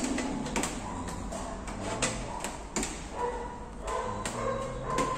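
Uneven plastic clicks and taps, roughly two a second, from hands working on the prepaid energy meters and circuit breakers of a meter panel.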